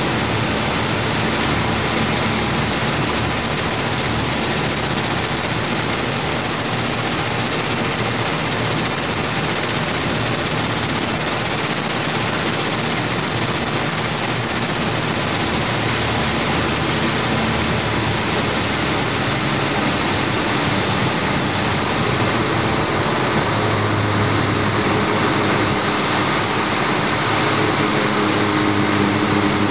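A fast prototype powerboat running on its twin Scania 12-litre six-cylinder diesels: a loud, steady, dense rush of engine, water and wind noise. In the last several seconds a deeper engine hum stands out more clearly.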